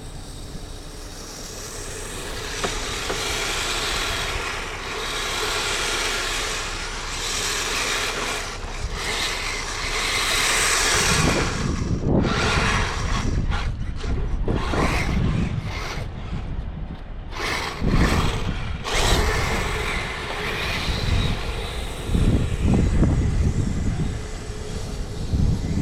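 Small 1/12-scale Blizzard 2.0 belt-tracked RC vehicle being driven over snow, its two electric motors and tracks running and varying as it speeds up and slows. From about halfway in there are irregular low rumbles.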